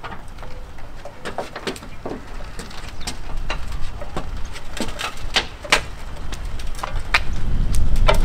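Power wheelchair rolling down a folding aluminium ramp, giving irregular clicks and knocks, with a low rumble growing near the end.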